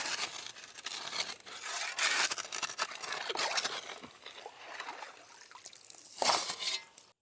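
Gravel and sand scraping and crunching in a gold pan with water, in an irregular run of gritty noise, louder about six seconds in, that cuts off abruptly at the end.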